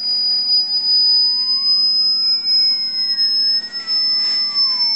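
Electronic sine test tones from the loudspeaker driving the wok drum: a loud, steady, high whine that creeps slightly upward, with two fainter gliding tones crossing it, one rising and one falling, like a ring-modulated sweep.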